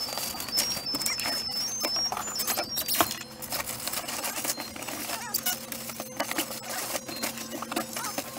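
Fast, continuous clattering and rustling of cardboard boxes and frozen packages being handled in and around a chest freezer, sped up, over a steady hum.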